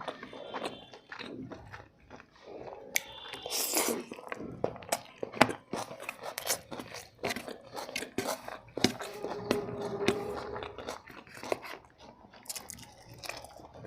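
Close-up chewing and biting while eating biryani, with many irregular wet mouth clicks.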